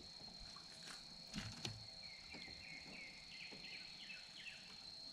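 Faint, steady, high-pitched drone of insects calling from the shoreline. From about two seconds in comes a quick run of short falling chirps, and a couple of light clicks sound about a second and a half in.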